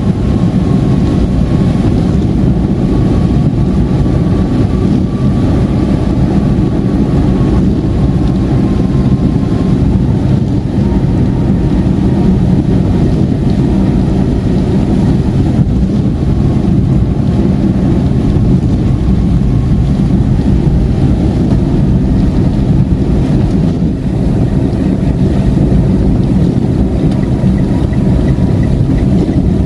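Car driving on a rain-soaked highway: a steady drone of engine and tyres on the wet road, with a faint whine over it for the first ten seconds or so.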